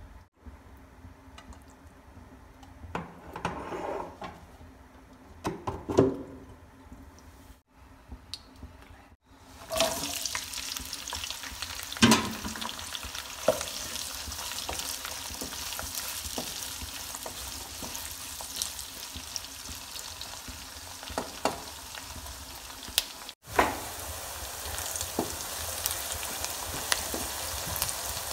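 Chopped onions frying in a black non-stick wok, with a steady sizzle that starts about a third of the way in. A wooden spatula knocks and scrapes against the pan now and then as the onions are stirred.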